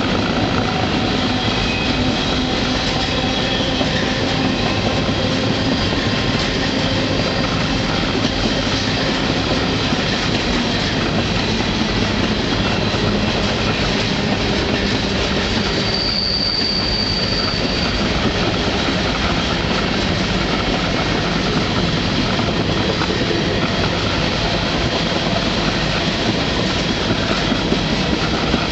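Riding noise of a freight car heard from aboard: the steady rumble and rattle of the wheels on the rails. About halfway through, a high wheel squeal sounds for about two seconds.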